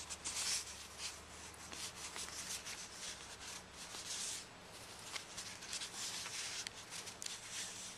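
Sheets of 6x6 scrapbook paper rustling and rubbing against each other as they are fanned and leafed through by hand, in soft irregular swishes.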